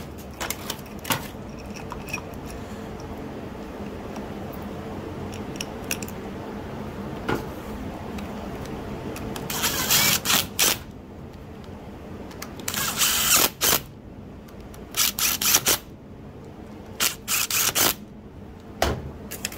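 DeWalt cordless impact driver run in about five short bursts over the second half, driving down the screws of a Senco Framepro 701XP nail gun's top cap.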